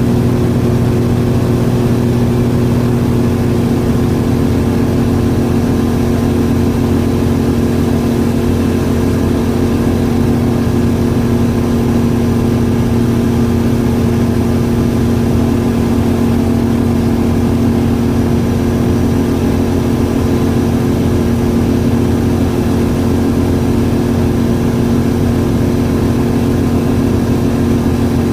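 Kitfox light aircraft's engine and propeller droning steadily in flight, heard from inside the cabin.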